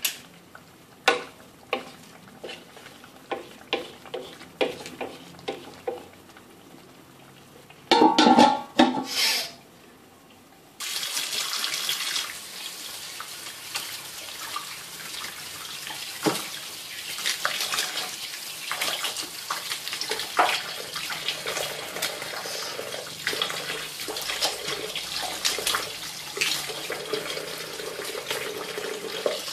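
Several light metal knocks and scrapes of a spoon in a wok, then a few loud clatters about eight seconds in. After that, a kitchen tap runs steadily into a stainless steel sink and plastic bowl, with small knocks as lemongrass stalks are rinsed and cut under the stream.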